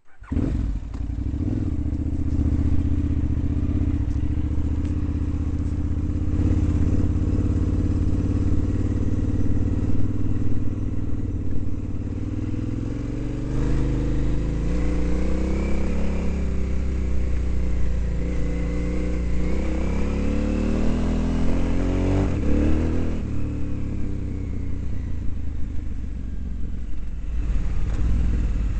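Motorcycle engine running steadily while riding a rough dirt road. About halfway through, the engine pitch rises and falls a few times as the bike speeds up and slows down.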